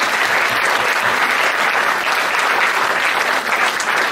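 A roomful of people applauding, many hands clapping together at a steady level.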